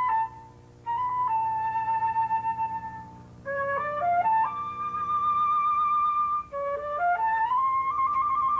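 Solo flute playing a slow melody: long held notes with vibrato and a few quick stepwise runs, broken by short breaths between phrases.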